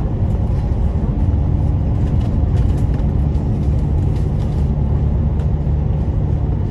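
Steady low rumble of a bus's engine and tyres cruising along a highway, heard from on board. A faint steady hum joins in about a second in.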